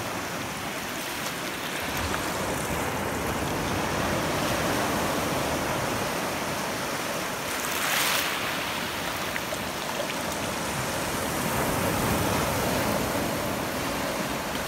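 Shallow surf washing over a shell-covered shoreline, a steady rushing wash with a brief louder hiss about eight seconds in as a foamy wave rolls through.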